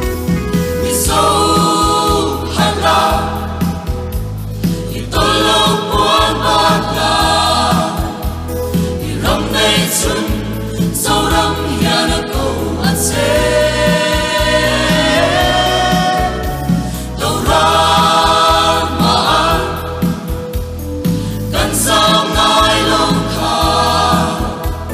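Mixed four-part choir of sopranos, contraltos, tenors and basses singing a Mizo gospel choral song, in sung phrases of a few seconds each with short breaths between them.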